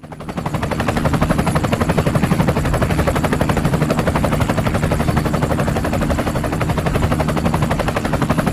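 Helicopter sound effect: a rapid, steady beating of rotor blades that swells in over the first second and then holds loud and even.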